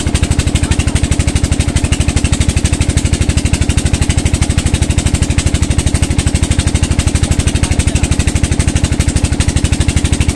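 The engine driving a tubewell pump runs steadily with a fast, even beat. Water gushes from the outlet pipe and splashes into the concrete tank.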